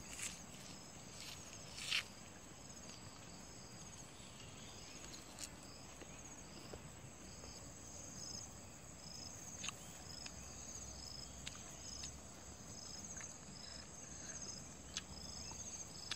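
Insects chirping: a steady high trill, with a second insect pulsing about one and a half times a second. A few sharp clicks come through it, the loudest about two seconds in.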